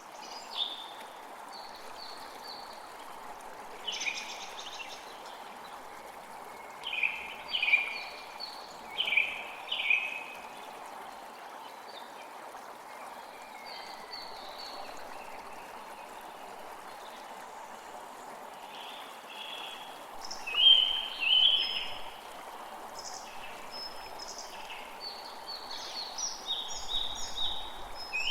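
Steady running water of a stream, with short bird calls breaking in every few seconds, loudest in a cluster about a quarter of the way in and again about two-thirds through.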